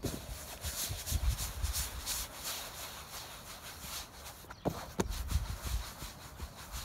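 Rustling and rubbing noises over a gusty low rumble of wind on the microphone, with two sharp knocks about half a second apart a little past the middle.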